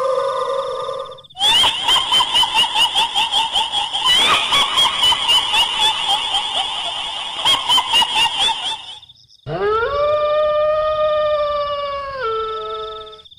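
Kuntilanak ghost sound effect: a high, rhythmic cackling laugh that pulses about four times a second, then after a short break a long wailing cry that steps down in pitch near the end.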